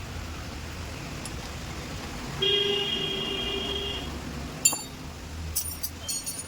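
Steady low traffic rumble, with a vehicle horn sounding once for about a second and a half; a few sharp clicks follow near the end.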